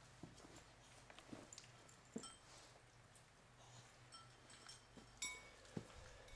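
Near silence: room tone with a steady low hum and a few faint clicks and ticks.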